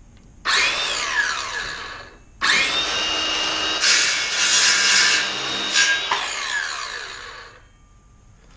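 Ryobi cordless circular saw running and cutting through wood in two runs: a short burst about half a second in, then a longer cut from about two and a half seconds, its blade winding down with falling pitch near the end.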